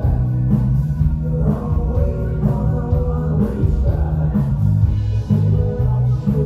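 Live pop-rock band playing: a male lead vocal over electric guitars, keyboard and a drum kit keeping a steady beat.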